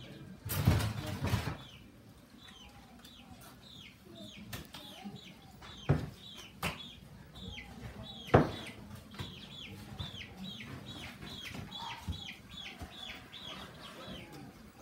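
Chicks peeping over and over, short falling chirps two or three a second. A loud clatter comes about a second in, and there are two sharp knocks later.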